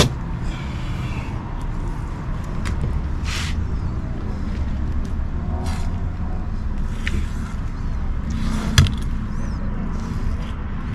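A large kitchen knife filleting a striped bass on a plastic cooler lid: short scrapes and clicks as the blade cuts along the ribs and taps the lid, with a sharper click about nine seconds in. A steady low rumble runs underneath and is louder than the cutting.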